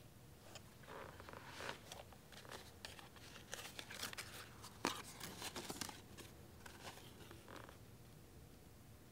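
Faint rustling and crinkling of a folded, worn paper leaflet being handled and unfolded, a run of short crackles over several seconds with one sharper crackle about five seconds in.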